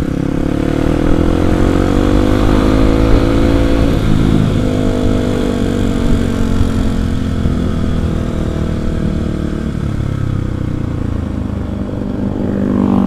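Kawasaki KLX 250 single-cylinder four-stroke engine pulling under the rider, rising in pitch as it accelerates, with a gear change about four seconds in, then rising again and easing off slowly. Wind noise rumbles on the microphone throughout.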